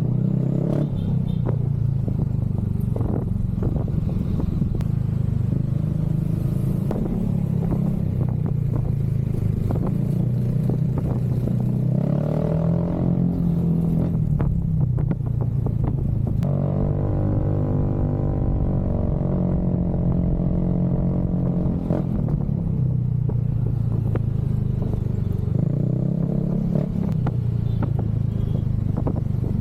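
Motorcycle exhaust running steadily, a deep even note whose pitch rises and falls a little now and then, with some light rattling over it.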